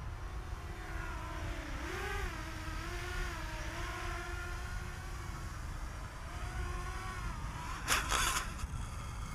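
Pirx 7 seven-inch quadcopter's Brother Hobby 2507 brushless motors and Gemfan 7-inch three-blade props droning in a hover, the pitch wavering up and down as it holds position, then dying away after about seven seconds. About eight seconds in there is a brief loud rushing burst.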